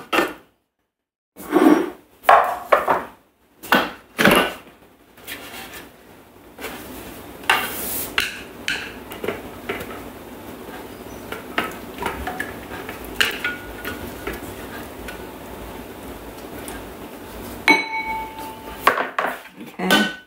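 Thermomix lid and stainless-steel mixing bowl clunking and knocking as they are taken off the base, then a spatula scraping the sticky marinade out of the mixing bowl into a ceramic bowl, with a few clicks. More knocks near the end as the mixing bowl goes back on the base.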